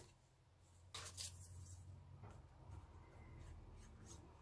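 Faint paper handling: a light tap about a second in, then quiet rubbing as a small paper scrap is held and glued, over a low steady hum.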